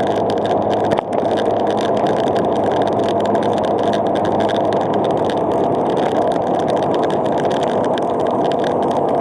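Vehicle driving on a gravel road: a steady noise of tyres rolling over gravel, with fine rapid crackle and an engine hum under it. There is a single brief knock about a second in.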